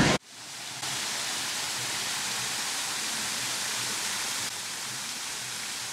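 Music cuts off abruptly at the start, then a steady hiss of water from a stone fountain splashing into its basin, dropping a little in level near the end.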